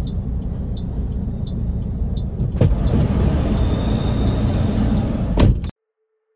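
Parked car with its engine idling, heard from inside the cabin, with a light tick about every two-thirds of a second. About two and a half seconds in a car door clicks open and the noise of the traffic outside grows louder; near the end a door shuts with a knock and the sound cuts off.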